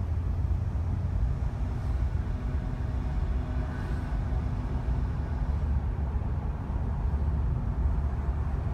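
A car driving along a city street: a steady low rumble of engine and tyre noise on the road.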